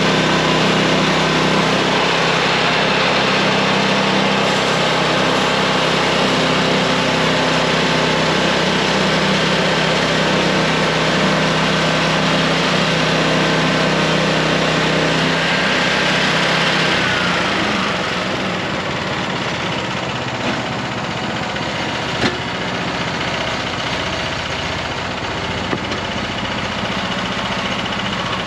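Gas engine of a Harbor Freight portable band sawmill running steadily at speed, then throttling back to idle about two-thirds of the way in, with a whine that falls in pitch as it slows. A few faint clicks follow.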